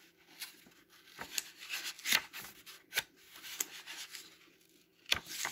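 Paper pages of a picture book rubbing and rustling as they are handled, with irregular scrapes and a few small clicks.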